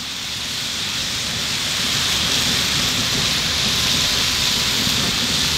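Chopped beef sizzling steadily on a hot Mojoe griddle over a propane burner, growing a little louder in the first second or two, with a low rumble underneath.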